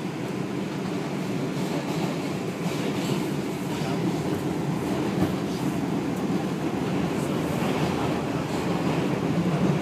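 New York City subway train running, heard from inside the car: a steady rumble that slowly grows a little louder.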